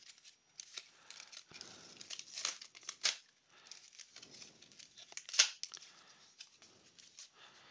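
A card blister pack being torn open by hand: the cardboard backing and plastic cover rip and crinkle in irregular bursts, with the sharpest tear about five seconds in.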